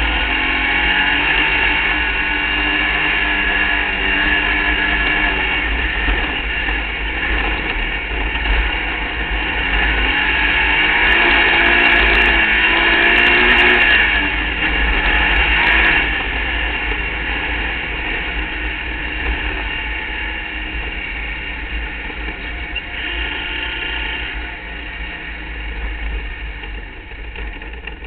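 Open-wheel hill-climb race car's engine running hard at speed, its pitch rising and falling as the throttle is worked. Loudest about halfway through, then easing off, over a steady low wind rumble on the onboard microphone.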